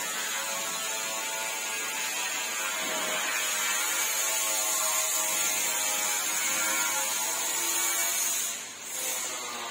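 A handheld power tool running steadily with a high whine, dropping off briefly near the end and picking up again.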